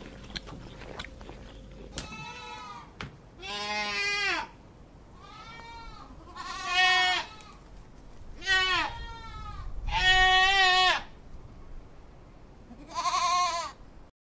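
Goat bleating repeatedly: about seven wavering bleats, starting about two seconds in, each under a second long and spaced a second or so apart.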